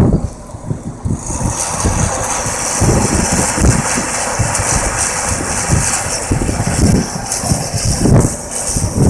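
Blizzard wind buffeting the microphone in irregular gusts, with a steady high hiss of wind and blowing snow setting in about a second in.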